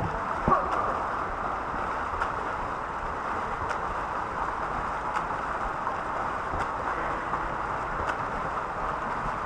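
Splashing and churning water from a swimmer's freestyle stroke, a steady rush of water noise, with faint ticks about every one and a half seconds.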